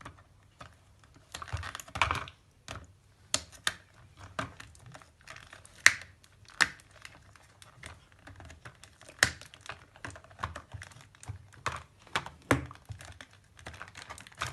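Irregular clicks, taps and rustling of a toy's cardboard box and plastic packaging being opened and handled.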